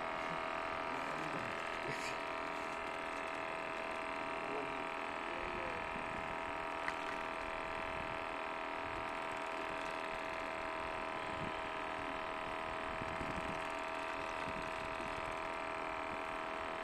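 Steady mechanical hum holding several even tones, with one faint tick about seven seconds in.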